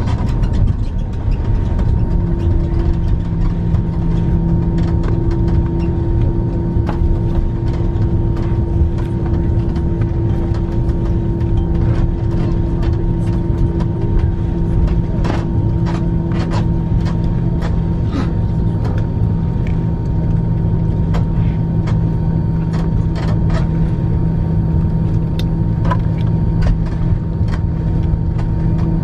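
Cabin noise of an Airbus A340-300 taxiing, its CFM56 engines at idle: a steady low rumble with a steady hum that comes in about two seconds in, and scattered light clicks and rattles.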